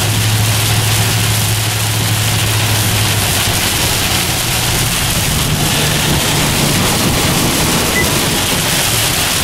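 Heavy rain hitting a moving car, heard from inside the cabin as a loud, steady hiss, with the low hum of the car underneath that weakens about three seconds in.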